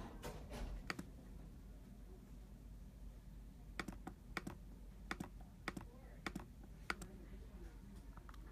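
Laptop keyboard keys clicking, about a dozen sharp, irregular taps with gaps between them.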